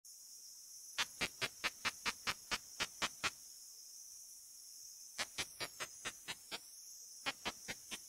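Song of a male Ishizuchi sasakirimodoki katydid (Shikokuconocephalopsis ishizuchiensis), a 57 kHz ultrasonic call made audible by a bat detector. It is a series of sharp clicks, about five a second, in runs broken by pauses of about two seconds, over the detector's steady high hiss.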